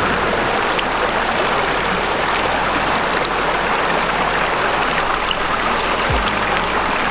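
Mountain torrent rushing steadily over rocks, an even, close wash of water noise, with a brief low bump about six seconds in.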